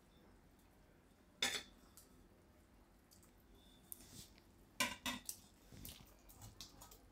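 Stainless steel plate clinking against the rim of a cooking pan as dhokli pieces are slid off it into the gravy. One sharp clink comes about a second and a half in, then a cluster of clinks and lighter taps about five seconds in.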